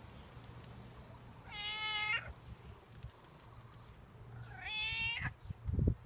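A black-and-white cat meowing twice, two drawn-out calls a few seconds apart, asking for food. Low thuds come in near the end.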